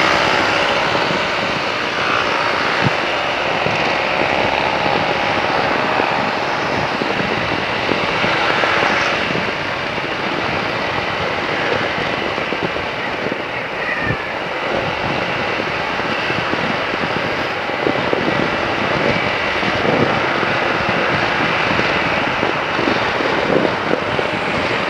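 Motorcycle riding on the road: a steady rush of wind and road noise on the helmet microphone over the engine's drone.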